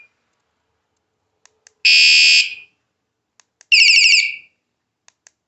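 A wsdcam 113 dB wireless bike alarm sounding its loud electronic siren in two short bursts. The first, about two seconds in, is a steady high tone; the second, about a second later, warbles rapidly. Faint clicks come just before each burst.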